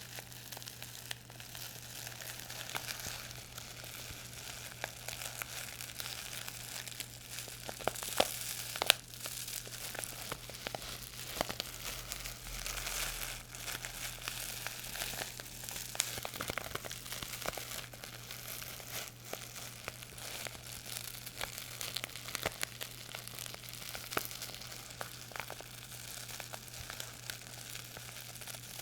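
Crinkly material being crumpled and crushed close to the microphone: a continuous crackling made of many small crinkles and snaps, with a few sharper snaps about eight to nine seconds in. A steady low electrical hum runs underneath.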